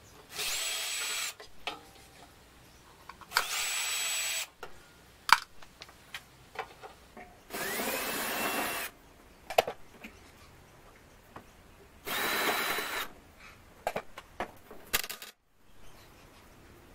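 Cordless drill backing out the screws of a battery charger's metal case. There are four short runs of about a second each, the motor's pitch rising quickly and then holding, with sharp clicks and knocks of handling in between.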